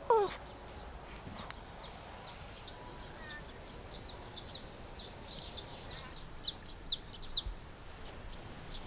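Small birds chirping with many short, high, falling notes, getting busier near the end. A brief falling vocal sound at the very start.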